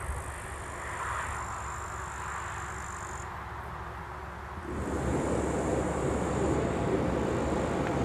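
Outdoor background with a steady high-pitched insect buzz. A little past halfway a low rumble rises and holds: a heavy freight train drawing near.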